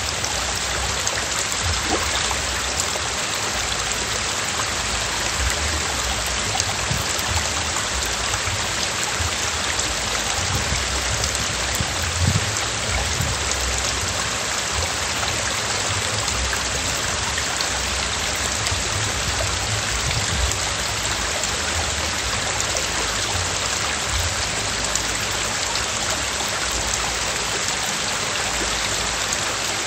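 Steady rushing of a small mountain stream running over rocks, with an uneven low rumble underneath.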